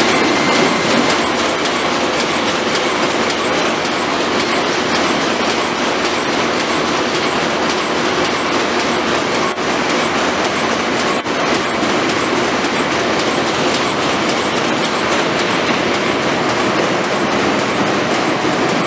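Butter packaging line running, with a fully automatic cartoning machine and its conveyors: a steady, dense mechanical clatter of rapid small clicks.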